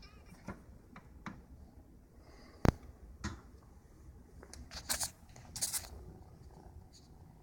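A few light knocks, one sharp knock about two and a half seconds in, then two short rustles about halfway through.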